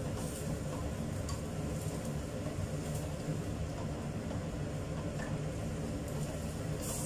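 A steady low rumble under a few faint scrapes and clinks of a spatula stirring jengkol pieces in a metal wok.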